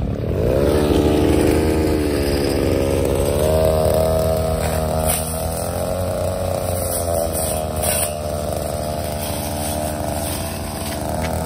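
Mitsubishi TL23 23cc two-stroke brushcutter running at light throttle while cutting reeds and grass. Its pitch rises about half a second in, then wavers a little as the load changes, with a few brief ticks.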